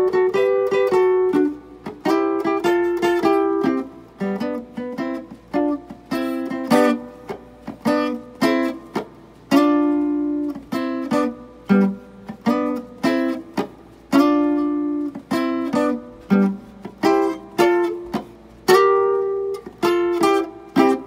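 Archtop guitar played with a pick in a rhythmic chord pattern. Short chord stabs and longer ringing chords alternate with single low bass notes.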